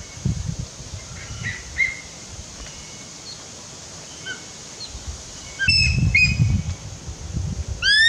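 Birds chirping: a few short, thin chirps spaced out, then a quick series of sharp rising chirps near the end. A low rumbling noise comes in briefly about six seconds in.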